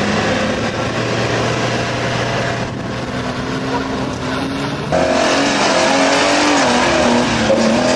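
Off-road 4x4 engine revving under load as it crawls over a dirt bank, its pitch wavering. About five seconds in the sound changes abruptly to a louder engine revving with pitch rising and falling, a second off-road vehicle clawing up a steep mound.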